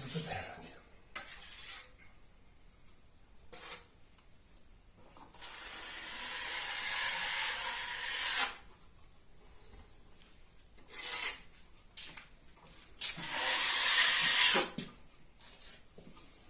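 Filling knife scraping joint filler along a taped plasterboard joint: a few short strokes and two long drawn-out ones, the loudest near the end.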